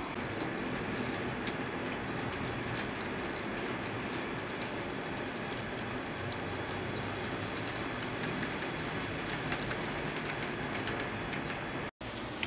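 HO-scale model diesel locomotive and railway crane train running along the layout track: a steady running noise with many light, irregular clicks of the wheels over the rail joints. The sound cuts out for an instant near the end.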